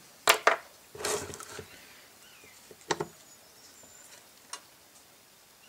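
Screwdriver and hand tools clicking and scraping against a cast metal Autolite carburetor body as the tool is picked up and set into a stuck screw: a few sharp clicks, a brief rattle, then two more clicks.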